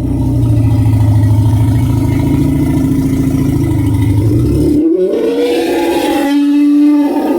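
Dinosaur (stegosaurus) call sound effect made mainly from elephant-like sounds. A long, deep growl lasts about five seconds, then gives way to a higher, pitched bellow that rises in pitch and then holds.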